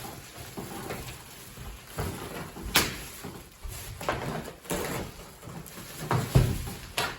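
A heavy DJ flight case and its packaging being handled and shifted during unboxing, with several sharp knocks and thuds; the loudest comes about six seconds in.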